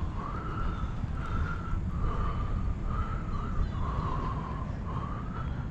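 Wind rumbling on the microphone while moving, with a high squeak repeating a little faster than once a second.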